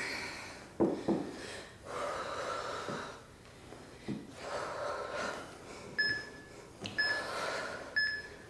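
Hard breathing of people exercising, rough puffs of breath about once a second with a few soft knocks of bodies on the floor. Near the end, three short electronic beeps a second apart count down the last seconds of the interval.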